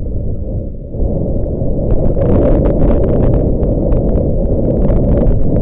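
Strong wind buffeting the microphone, a loud, low rumble that picks up about a second in, with rapid crackling and rustling clicks over it from about two seconds in.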